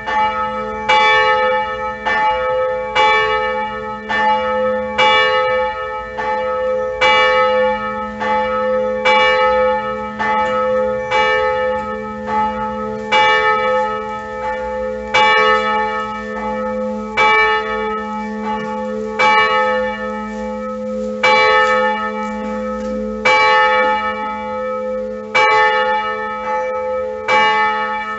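Church bell rung at noon, striking steadily about once a second with every other stroke louder, each stroke ringing on into a steady hum.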